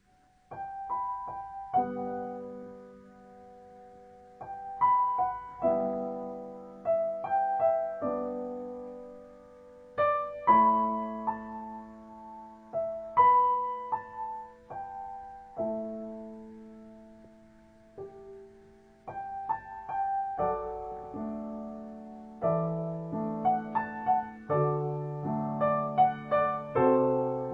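Background music: a gentle solo piano piece played slowly, with single notes and chords.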